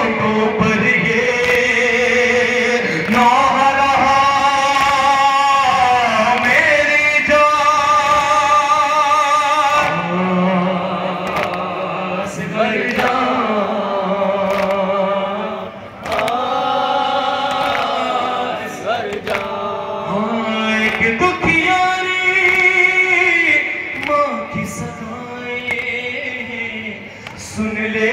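Male voices singing a noha, a Shia lament, unaccompanied through microphones and loudspeakers, in long held, wavering melodic lines.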